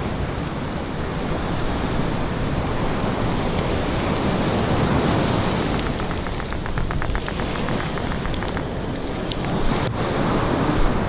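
Wind buffeting the microphone over surf at the water's edge: a steady rushing noise with a low rumble. About six seconds in comes a short run of quick ticks, and a single click near the end.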